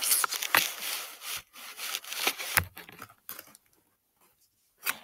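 Scraping and rubbing noise right against the microphone, from a dog's fur and a child's sleeve brushing it. The noise is heavy for the first few seconds, then thins to scattered clicks, with a sharp knock near the end.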